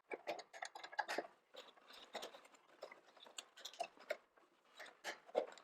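Irregular light clicks and ticks of a wrench turning the nut that fastens the snowblower's shift connection bar to the shift lever.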